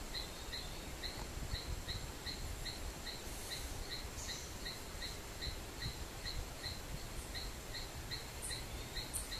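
Wetland ambience: an insect chirping evenly, just under three short chirps a second, over a steady outdoor hiss, with a few faint higher chirps near the end.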